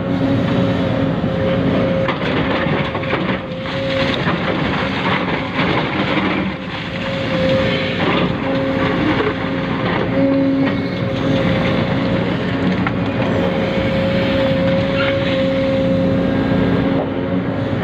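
Small electric motors and gears of radio-controlled model construction vehicles, an RC excavator and an RC dump truck, whining steadily while loading clay. A steady hum drops out briefly now and then.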